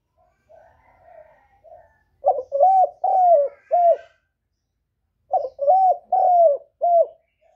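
Spotted dove cooing: a few soft notes, then two loud phrases of four coos each, separated by a pause of about a second.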